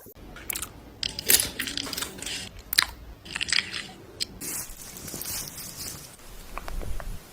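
Close-up sounds of skincare products being handled and used: irregular sharp clicks and crackles with rustling in between.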